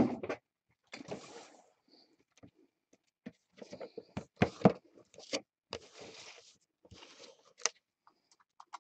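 Shrink-wrapped cardboard boxes being lifted, slid and set down on a table: scattered rustles, scrapes and light knocks.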